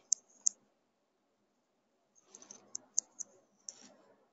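Faint, light clicks of a computer mouse and keyboard at a desk: two near the start, then after a pause a run of about six close together.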